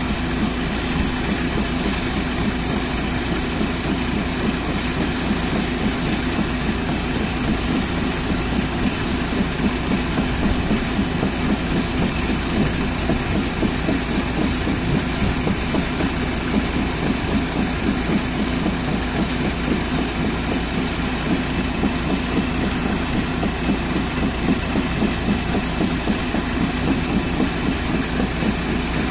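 An engine idling steadily with an even pulse, over the steady hiss and splatter of a hose jet spraying water onto an excavator's steel tracks.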